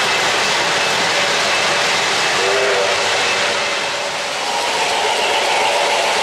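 O-gauge three-rail model trains running past close by: a steady rushing noise of wheels on the rails and the locomotive motors, with faint steady tones joining in after about four seconds.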